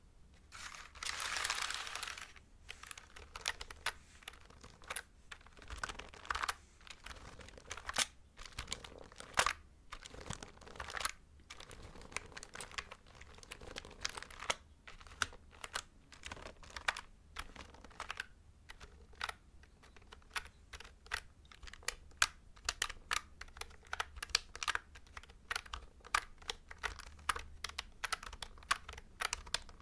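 Computer keyboard keys pressed and tapped: scattered clicks at first, turning into quick, dense typing from about halfway. A brief rustle of about two seconds comes right at the start.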